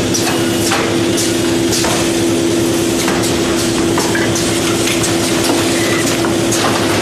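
A4 paper overwrapping machine running: a steady hum under a continuous mechanical clatter, with short clicks and knocks from its folding mechanism repeating every half second to a second.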